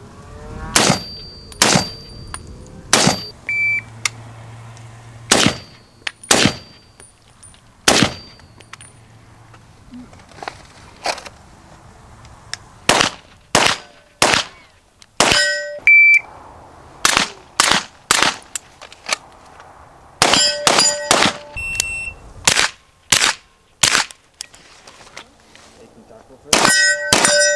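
Gunshots fired at steel targets, hits answered by ringing clangs of steel plate; short electronic shot-timer beeps start the strings, and a quick string of shots comes near the end.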